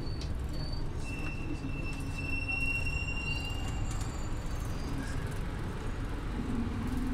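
Scania OmniLink city bus running with a steady low rumble; about a second in, a thin high-pitched squeal rises over it and holds for about three seconds.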